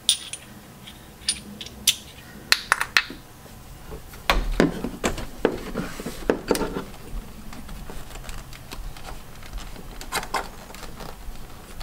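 Metal socket and extensions clinking and clicking as a 20 mm deep socket is worked down onto an engine coolant temperature sensor by feel. The clicks come in scattered ones and twos, with a denser run of clatter about four to seven seconds in.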